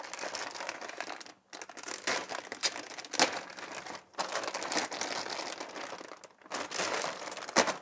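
Plastic packaging crinkling and rustling as modular power-supply cables are handled, with scattered sharp clicks and two louder taps, one about three seconds in and one near the end.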